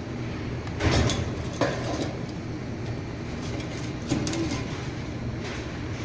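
A few sudden knocks and scrapes, the loudest about a second in and a sharp one shortly after, over a steady low background hum.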